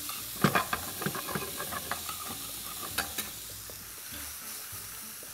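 Mixed mushrooms frying in hot olive oil in a pan, a steady sizzle. A utensil stirs and scrapes the pan, clicking mostly in the first second and a half and again at about three seconds.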